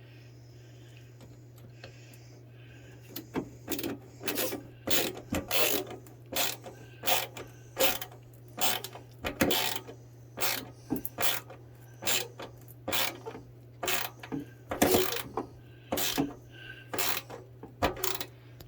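A screw being driven into wood with a hand screwdriver: a short grinding creak with each twist, about one and a half a second, starting about three seconds in. A low steady hum runs underneath.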